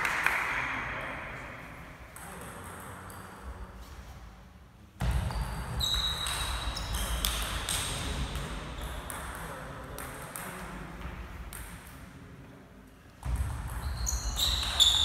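Table tennis rallies: the ball clicking off the players' rackets and bouncing on the table in quick exchanges, echoing in a large gym hall.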